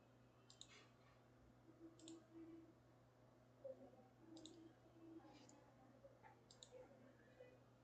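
Near silence with about six faint computer mouse clicks, some in quick pairs, over a low steady hum.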